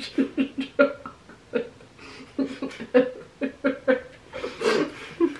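Two women laughing with their mouths full, muffled and broken into short bursts, with a loud breathy exhale about four and a half seconds in.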